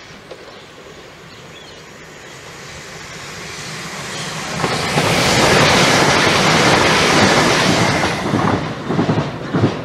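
Southern multiple-unit passenger train running through the station: a rumble that builds over the first few seconds and is loudest about five to eight seconds in, with the wheels clattering over the rail joints. Near the end the clatter breaks up into separate wheel thumps as the last carriages go by.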